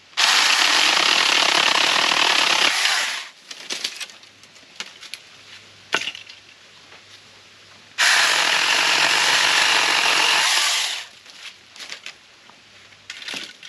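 Saker mini battery-powered electric chainsaw cutting through dead branches in two runs of about three seconds each, the motor and chain going at full speed while biting into the wood. Between the cuts there are small clicks and crackles.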